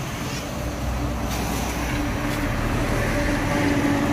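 Heavy truck engine running with a steady low hum, growing louder toward the end.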